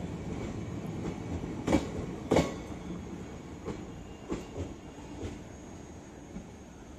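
Passenger train coaches rolling past, wheels clattering over the track over a steady rumble. There are two loud clacks about two seconds in, then fainter ones as the last coach goes by and the sound fades.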